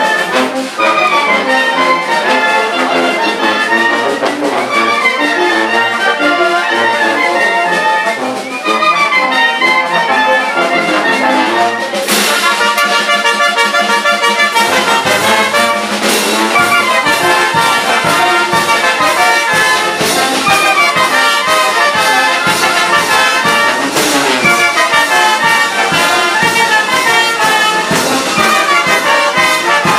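A village brass band with sousaphones and a bass drum playing dance music. The tune changes abruptly about twelve seconds in, and a steady bass-drum beat carries the rest.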